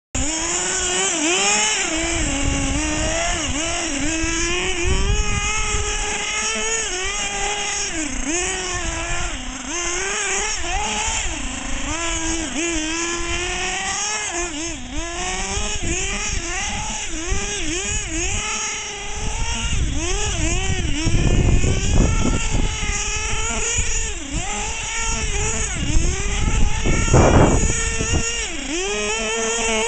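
Two-stroke glow-fuel nitro engine of a GS Storm 1/8-scale RC buggy, revving up and down constantly as the car slides and spins on snow; its high whine rises and falls about once a second. A couple of louder rushing bursts come in the last third.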